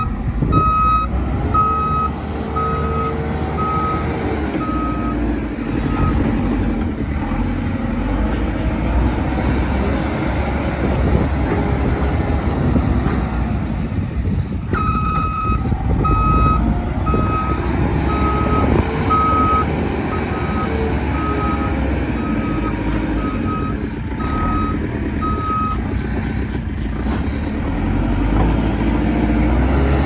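JCB 3CX backhoe loader's diesel engine running and revving as it manoeuvres, with its reversing alarm beeping about three times every two seconds in two stretches: for the first six seconds, and again for about eleven seconds from the middle.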